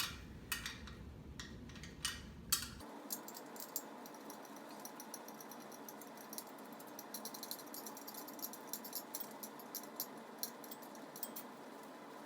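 Scattered light clicks and metallic clinks of tools being handled, thickest in the second half, over a faint steady hiss. A low background hum cuts out about three seconds in.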